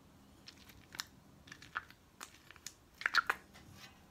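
Hand-squeezed slime making small wet squelching and crackling pops as it is pressed into a small plastic keychain container, with a louder cluster of squelches about three seconds in.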